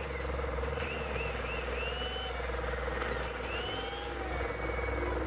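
Electric hand drill running steadily, its bit boring into the aluminium crankcase of a Honda TMX 155 beside a fitted sleeve insert. This is the hole to be tapped for a 5 mm locking screw that keeps the sleeve from turning.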